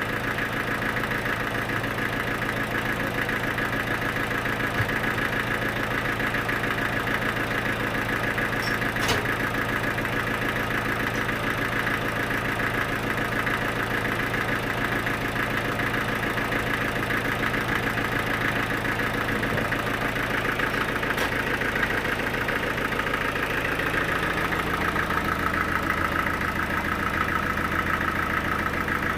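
Sawmill machinery running steadily with an engine-like hum. Its tone shifts about three quarters of the way through.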